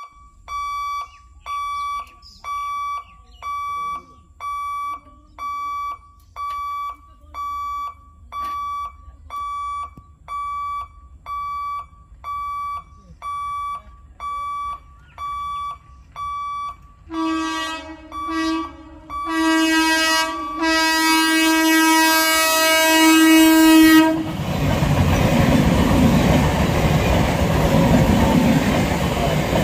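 Level-crossing warning beeper sounding in a steady rhythm of about one and a half beeps a second. After about 17 seconds an EMU local train's horn sounds a few short blasts and then one long blast. The train then passes close by with loud, continuous wheel-on-rail noise.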